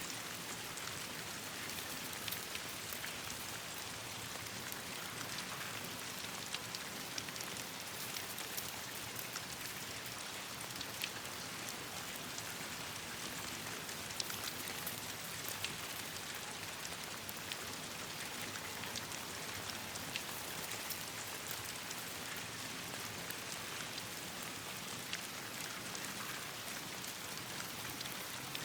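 Steady rain falling, with scattered sharp ticks and pops throughout.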